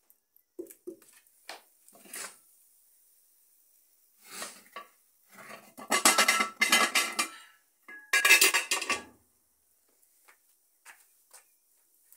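Aluminium saucepan knocking and scraping against the stones of a three-stone wood-fire hearth as it is set over the flames: a few light knocks, then two loud bursts of metal scraping and clattering with a faint ring.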